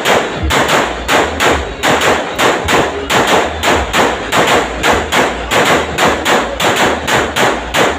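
A rapid, evenly spaced series of loud, sharp bangs, about three a second, starting and stopping abruptly.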